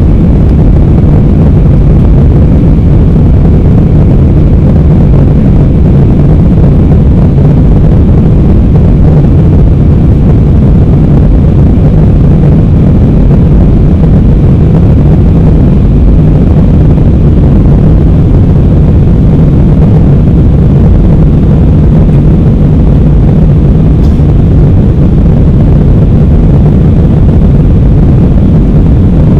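Steady cabin roar of an Airbus A320 climbing after takeoff: the jet engines and rushing airflow heard from a window seat over the wing. It is a deep, even rumble with a low hum running through it.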